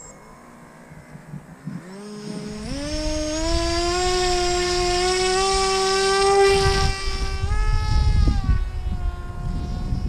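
Electric motor and propeller of a foam FPV flying wing whining as the throttle is opened in steps about two seconds in, then holding a steady pitch with small throttle changes. Wind buffets the microphone in the second half.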